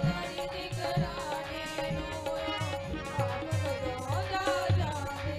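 Instrumental break in a Punjabi devotional worship song: a steady hand-drum beat, tabla-like, under a held tone and a gliding melody line, between sung verses.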